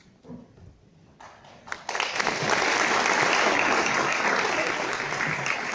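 Audience applauding. The clapping builds in a little under two seconds in, keeps up steadily and eases slightly near the end.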